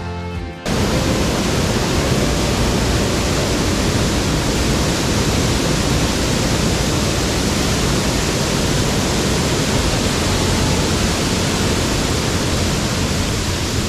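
Loud, steady rush of water pouring over a high weir on a mountain stream. Background music cuts off abruptly under a second in.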